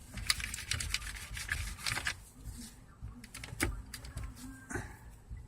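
Plastic climate-control button on a car dashboard being pressed over and over, giving a string of irregular clicks. The button had been sticking and is being worked in after a little silicone spray lubricant was put into it.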